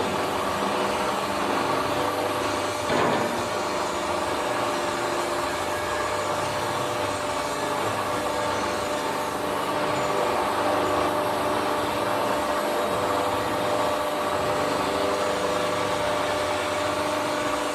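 Hydraulic plate-bending press running: the pump and motor of its hydraulic unit give a steady hum with a constant whine, as the press's two hydraulic cylinders work a 5 mm steel plate.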